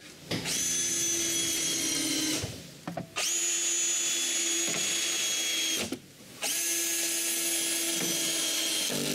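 A power drill runs three times, a few seconds each, with a steady whine and short pauses between. It is driving screws to fasten a metal roof back in place.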